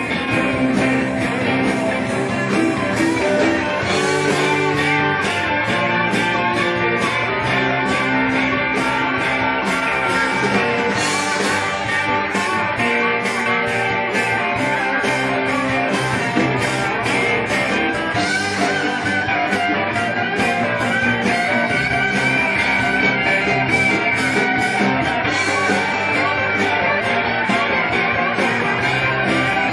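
Live blues-rock band playing: electric guitar and pedal steel guitar over bass and drums, with steady hi-hat ticks and a crash cymbal about every seven seconds.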